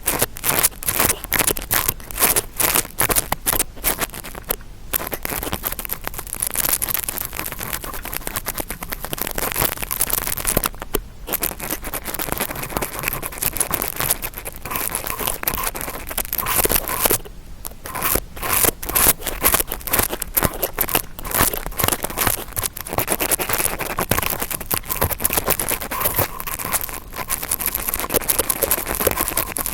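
Interdental brush scratching and scraping in fast, crackly strokes to imitate ear cleaning, with a few brief pauses.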